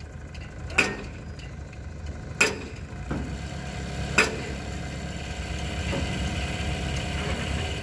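Escorts Hydra 14 crane's diesel engine running steadily, picking up a little from about halfway in. Over it come three sharp, ringing strikes about a second and a half apart.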